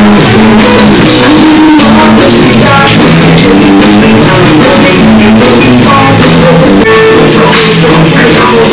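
Loud rock music with guitar, drums and singing.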